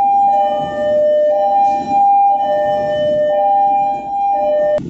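Two-tone alarm of a ship's engine room. A higher and a lower tone take turns, each held about a second, until it cuts off abruptly with a click near the end.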